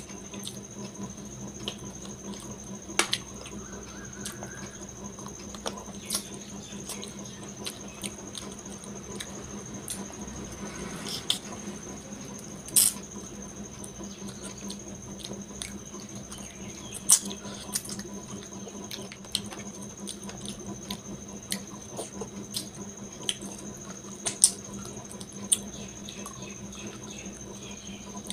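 Close-miked wet chewing and lip-smacking of a person eating rice and curry by hand, with sharp smacks every second or two. Under it runs a steady low hum and a thin high tone.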